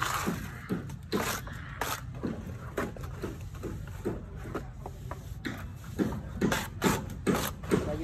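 Steel plastering trowel scraping and smoothing wet cement plaster on a brick wall, in short, irregular strokes.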